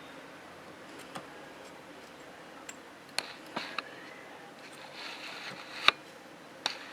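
Scattered light clicks and taps of hand work on a circuit board while the pins of a replacement amplifier IC are soldered, with a brief hiss and one sharper click just before six seconds in.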